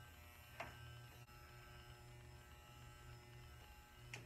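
Electric hair clipper with a comb guard running with a faint, steady low hum while trimming hair, with a couple of brief faint swishes.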